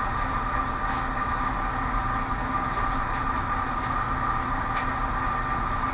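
A steady droning hum with a constant high whine in it, over which come a few faint light clicks of a dimple pick working the pins of a Mul-T-Lock MT5+ padlock core.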